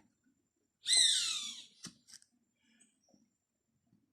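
A bird gives one loud call of about a second that slides down in pitch, followed shortly by a short knock.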